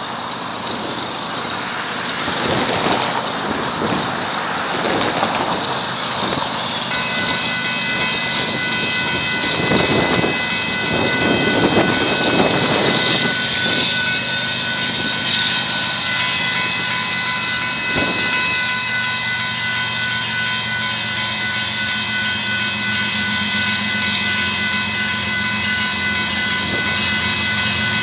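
Union Pacific diesel freight train approaching, its locomotives' engine drone building toward the end. A steady high ringing of several tones comes in about a quarter of the way through, and gusty rushing noise surges in the first half.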